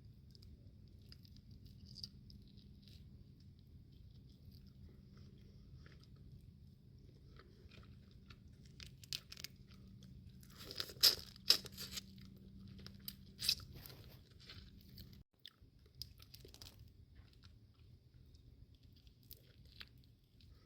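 Boiled crawfish being peeled and eaten close to the microphone: soft chewing and small clicks, with a cluster of sharp, loud shell cracks and crunches about halfway through. A low steady hum underneath cuts off about three-quarters of the way in.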